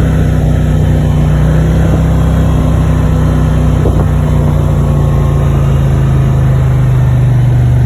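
Four-wheeler (ATV) engine running steadily while riding, easing slightly lower in pitch near the end.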